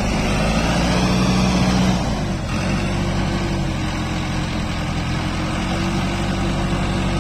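Tumosan 8195 tractor's diesel engine running steadily under load as its rear wheels sit dug into soft ploughed soil; the engine note drops slightly about two seconds in, then holds.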